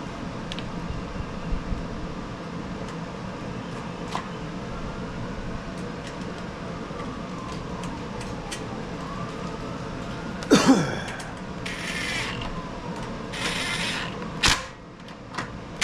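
Small clicks and rattles of hand tools and nuts as they are refitted on the engine, over a steady low shop hum. A louder scraping rattle comes about two-thirds through, and a sharp click near the end.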